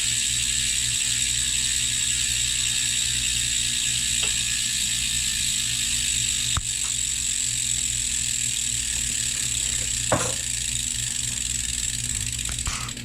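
Bicycle mechanism being worked on: a steady whir with ratchet ticking, broken by a few sharp metallic clicks and one louder clank with a brief ring about ten seconds in.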